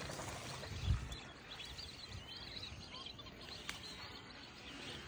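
Many faint, short bird chirps over quiet open-air ambience, with one low thump about a second in.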